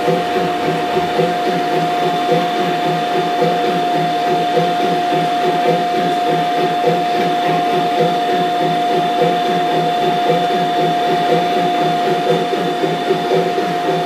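Small electric motor and gearing of an On30 model steam locomotive whining steadily as the train rolls along the track, with a fast, even pulsing under the whine.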